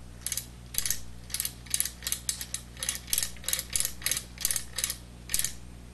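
Metal slider on the record-changer mechanism plate of a GE Wildcat portable record player being worked back and forth by hand, giving a run of short clicks and scrapes at about three a second.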